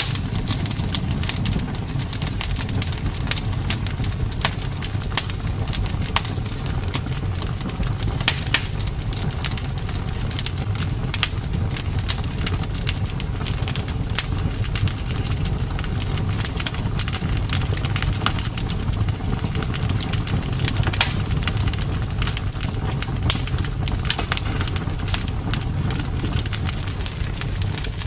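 Wood fire burning in a fireplace, crackling with frequent sharp pops and snaps over a steady low rumble.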